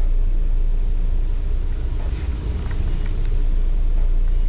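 Steady low hum with a hiss over it, and a few faint ticks about two to three seconds in.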